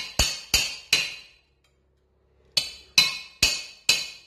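Hammer blows ringing on steel, about three a second: three strikes, a pause of about a second, then four more. The blows knock the abrasive flaps off a worn flap disc clamped in a bench vise, to keep only its fibre backing.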